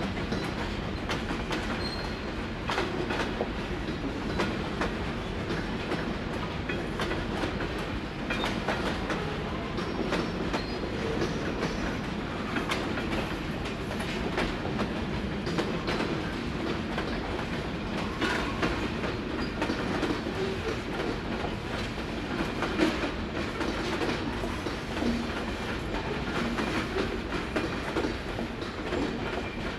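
Freight cars of a long, slow-moving train rolling over a road grade crossing: a steady rumble of wheels on rail with a continual clicking as the wheels pass over the rail joints and crossing.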